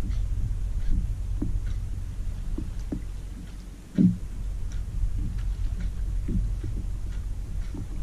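Wind rumbling on the microphone and water lapping against a plastic fishing kayak, with light irregular taps and one sharp thump about four seconds in.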